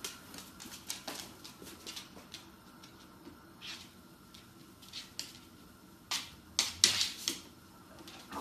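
A dog's claws clicking and tapping irregularly on a hard floor as it steps and paws about, with a louder flurry of taps about six to seven seconds in.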